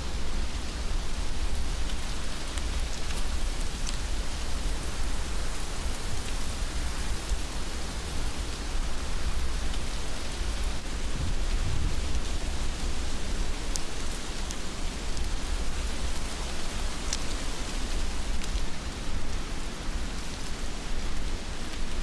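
Steady heavy rain, with a constant low rumble underneath and a few sharp drop ticks now and then.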